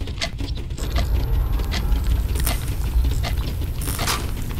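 Low, steady rumbling drone under scattered, irregular clicks and ticks, a tense sound-design bed.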